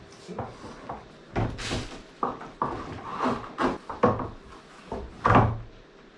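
Irregular knocks and clatters of things being handled and set down, with a short scraping rustle about a second and a half in and the loudest knock near the end.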